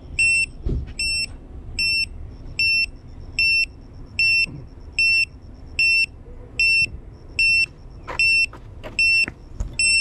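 Small electronic buzzer beeping steadily, one short high beep about every 0.8 seconds, typical of an FPV drone's lost-model beeper sounding once the drone is down. Low rustling and handling knocks underneath, with a few knocks near the end.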